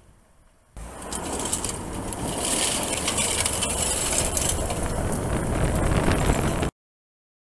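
Tyres of an F-150 Lightning prototype sliding on a loose gravel road: a loud rush of crunching, spraying gravel with no engine note. It starts suddenly about a second in and cuts off abruptly near the end.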